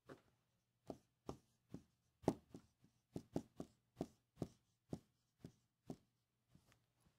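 Dry-erase marker writing on a whiteboard: a faint run of short, sharp strokes and taps, about two a second at an uneven pace.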